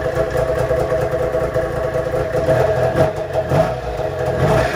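Freshly rebuilt twin-cylinder two-stroke snowmobile engine, with new pistons and rings, running on its first start after the top-end rebuild, with a few short rises in engine speed in the second half.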